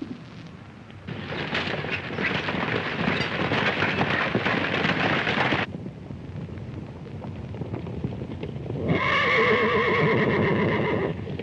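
A herd of horses galloping, a dense rumble of hoofbeats that cuts off suddenly about halfway through. Near the end a horse whinnies, one long wavering call.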